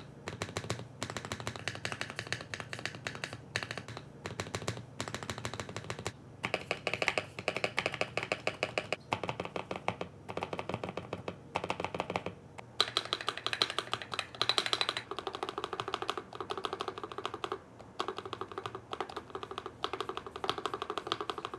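Rapid keystrokes on three mechanical keyboards in turn, a GMK67, a CIY Tester 68 and a GMMK Pro, each with its spacebar damped by a piece of car sound-deadening mat for a deeper thock. The click sound changes about six seconds in and again about thirteen seconds in as the boards change.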